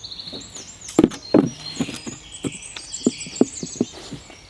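A run of uneven knocks and scrapes, a few each second, with two louder knocks about a second in, while birds chirp repeatedly in the background.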